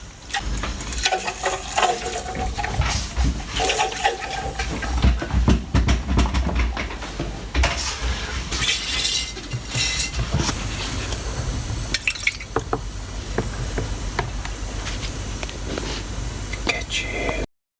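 Water running or filling, with repeated clinks and knocks of hard objects being handled. It cuts off suddenly near the end.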